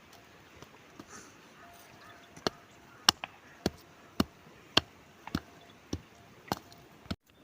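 A steady series of sharp knocks, a little under two a second, starting a couple of seconds in and stopping just before the end.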